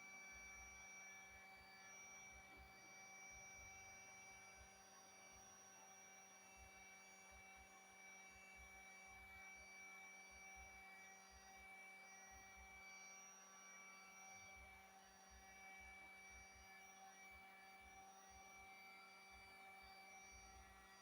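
Near silence with a faint, steady hum of several fixed tones.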